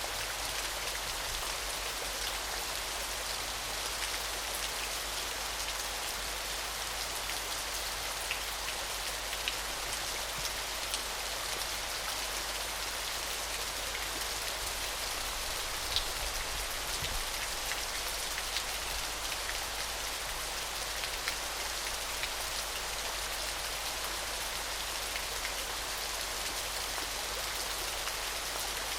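Small waterfall splashing steadily: an even, bright hiss of falling water with scattered small droplet splashes through it, one a little louder about sixteen seconds in.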